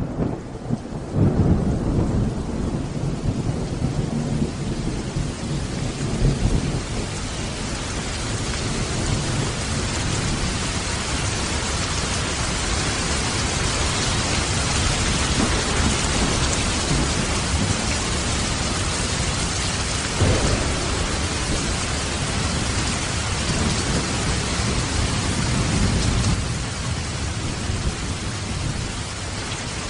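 Steady rain, with deep rumbles that swell and fade a few times, strongest about a second in.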